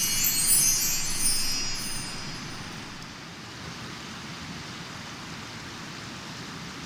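A high, shimmering chime-like sound with repeated falling sweeps fades away over the first two seconds, leaving the steady rushing of a flowing river.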